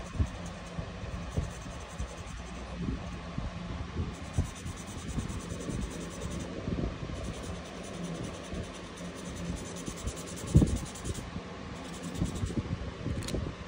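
Red felt-tip marker worked in short strokes on a sheet of paper on a table, giving irregular light taps and rubbing, with one louder thump about ten and a half seconds in, over a steady low hum.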